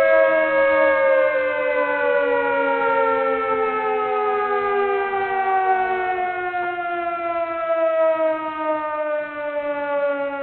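Siren-like wail of several held tones gliding slowly downward in pitch.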